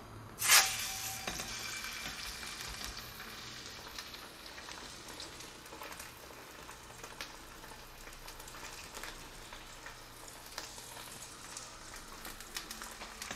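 Raw chicken leg quarter laid into a stainless steel frying pan with a thin film of hot oil: a loud burst of sizzling about half a second in, settling into steady frying with scattered pops and crackles as the chicken begins to brown.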